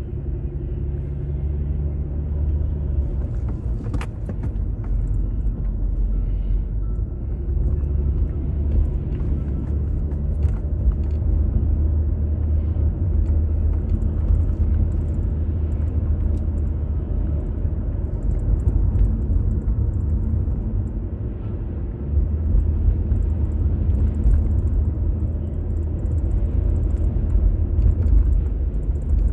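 A car driving, heard from inside the cabin: a steady low rumble of road and engine noise. There is a single sharp click about four seconds in.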